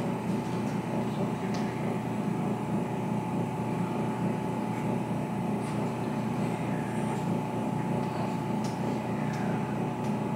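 Steady mechanical hum of room machinery, a low even noise with a constant high tone running through it.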